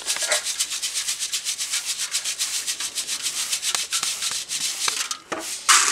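Ground sorghum being sifted by hand in a round wooden-rimmed mesh sieve: grains rasp and rattle against the screen in a quick, regular rhythm, with a louder burst near the end.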